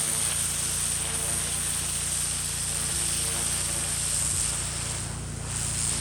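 Gas-engine pressure washer running steadily, with the hiss of high-pressure water spraying. The spray cuts out briefly near the end while the engine keeps running.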